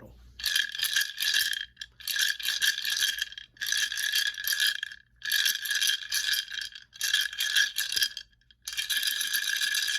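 A clay rattle shaken in six short rhythmic phrases with brief pauses between, the shakes carrying a steady ringing tone.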